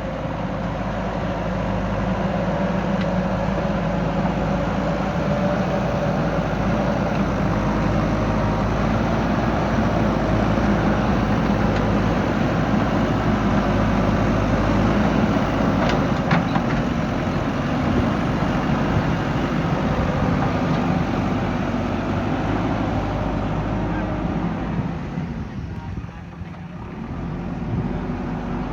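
JCB backhoe loader's diesel engine running steadily while working. It has one sharp knock about halfway through and eases off briefly near the end before picking up again.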